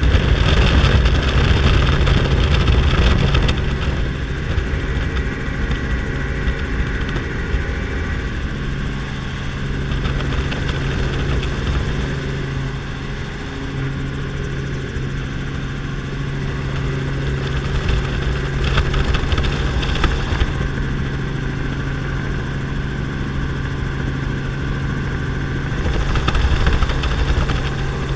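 Helicopter engine and rotor running steadily, heard from inside the cabin with a constant low hum, as the helicopter descends to land. Gusts of wind buffet the microphone at the start and again near the end.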